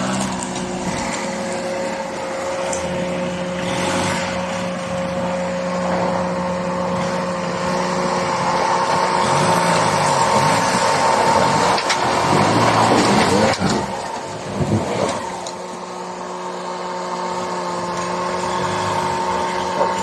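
Off-road 4x4 vehicle's engine running steadily. The revs rise and fall in the middle, where it is loudest.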